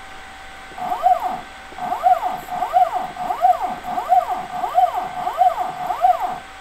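Stepper motor driving the spindle axis of a home-built CNC router/engraver, jogged in repeated 1 mm moves: about eight short whines, each rising then falling in pitch, roughly two-thirds of a second apart, with a steady whine beneath.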